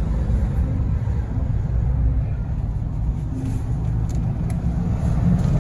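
Steady low rumble of a large pickup truck's engine and road noise heard from inside the cab as the truck rolls slowly.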